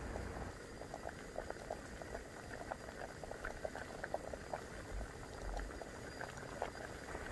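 Liquid bubbling at a boil: a dense, irregular run of small pops and blips.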